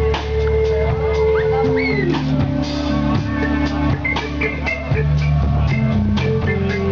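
Live blues-rock band playing: keyboard over electric guitars, with a drum kit keeping a steady beat.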